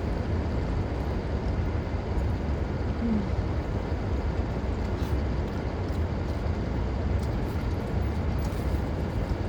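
Steady low rumble with a hiss over it, inside a parked car, with a few faint clicks.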